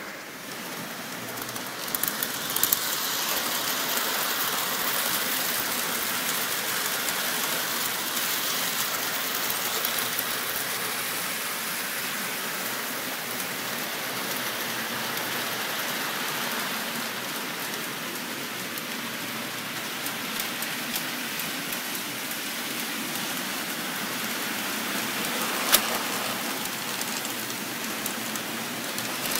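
Toy trains running on three-rail O-gauge metal track: a steady rushing rattle of wheels and motors on the rails. A few sharp clicks come about two seconds in, and a single louder click near the end, as wheels pass over rail joints or switches.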